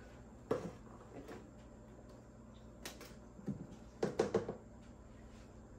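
Plastic measuring cup scooping flour from a plastic container, giving a few scattered light knocks and scrapes, with a quick run of taps about four seconds in.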